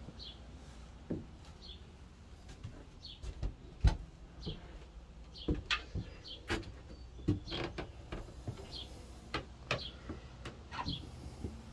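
A bird repeating a short, falling chirp about once a second, with scattered knocks and thumps of footsteps on wooden floorboards and deck boards; the loudest knock comes about four seconds in.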